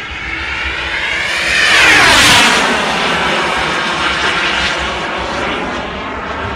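Radio-controlled model airplane's engine flying past: the engine note swells to its loudest about two seconds in, its pitch drops as the plane goes by, and it then fades slowly.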